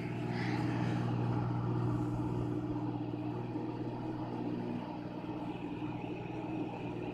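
Microwave oven running with a steady electrical hum while it cooks brownie batter.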